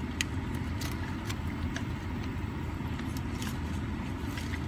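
Steady low rumble of a car idling, heard inside the cabin, with a few faint scattered clicks over it.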